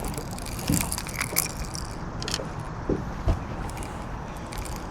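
Scattered light knocks and rattles of fishing gear being handled in a boat, over a low steady background hiss.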